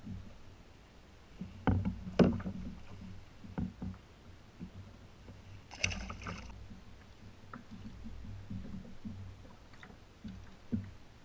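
Knocks and thumps of handling on a plastic fishing kayak, the loudest about two seconds in, over a low rumble of wind and lapping sea water. A brief splashy hiss comes about six seconds in.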